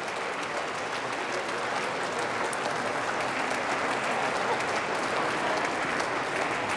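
Applause: a crowd of parliament members clapping steadily, many hands at once.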